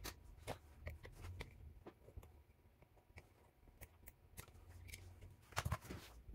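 Faint scattered clicks and light rustling from hands and a small hand tool handling a TV power-supply circuit board, with a louder little cluster of clicks near the end.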